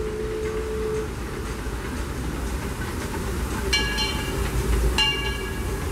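Disneyland Railroad steam train running past with a low rumble, its locomotive bell ringing twice, about 1.3 seconds apart, in the second half. A steady hum fades out about a second in.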